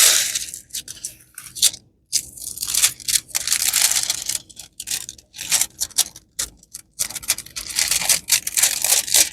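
Crinkling and rustling of a stiff diamond painting canvas and its plastic cover being handled and unrolled, in irregular bursts with short pauses.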